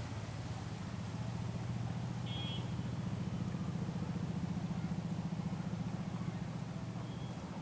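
A small engine running steadily with a fast, even pulse, slightly louder in the middle, and a brief high chirp about two and a half seconds in.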